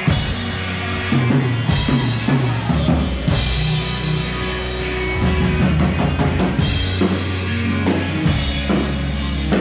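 Rock band playing live: a drum kit with kick and snare hits under sustained bass-guitar notes and electric guitars.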